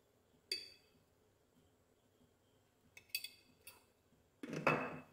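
A metal spoon clinking a few times against a container and pan as salt is spooned onto jackfruit batter, with one clink about half a second in and a quick cluster around three seconds. Near the end comes a short, louder scrape.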